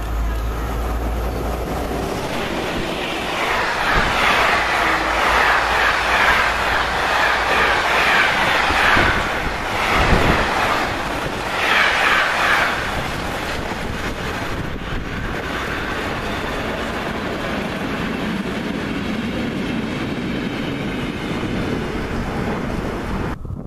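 Diesel-hauled freight train passing close by, its wagons rolling past with a rhythmic clickety-clack of wheels over the rail joints. The clatter is loudest from about three to thirteen seconds in, then settles to a steadier rumble as the rest of the train goes by.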